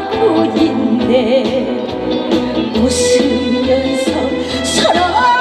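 A woman sings a trot song live with a band behind her: her voice carries the melody over a steady beat, with cymbal crashes in the second half.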